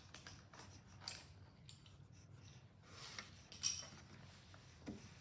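Faint scratching of a graphite pencil drawing short strokes on paper, in a few separate bursts, with a light knock near the end.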